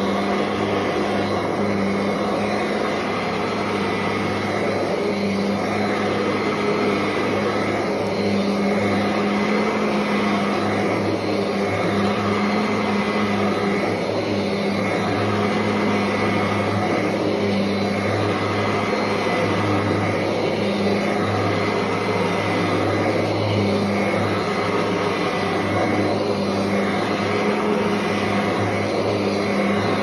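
A Kirby Ultimate G upright vacuum cleaner running on carpet in upright mode: a steady motor hum with a low drone. Its sound dips slightly about every three seconds.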